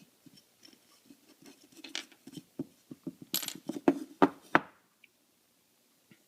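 Small hard objects being handled and set down: a run of light clicks and clinks, coming thicker and louder about three to four and a half seconds in.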